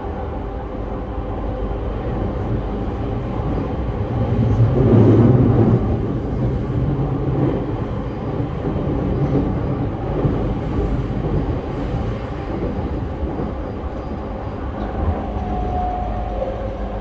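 E231-1000 series electric train with Hitachi IGBT-VVVF control, heard from inside a motor car while running: a steady rumble of wheels on rail with faint steady motor and gear tones. A louder, deeper rumble swells about four seconds in and eases off a couple of seconds later.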